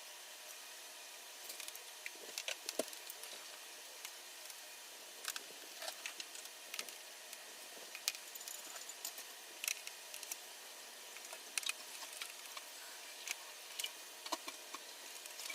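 Scattered light clicks and taps of small parts being handled during repair work, irregular and a few every second or two, over a steady faint hiss.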